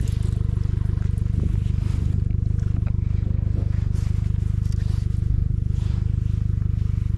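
Honda outboard motor idling steadily, a low, evenly pulsing drone, with a few light clicks and scrapes from handling the line and a freshly caught redfin.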